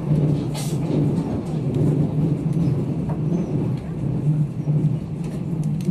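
Running noise of a locomotive-hauled sleeper coach at speed, heard inside the car: a steady low drone of wheels on the rails.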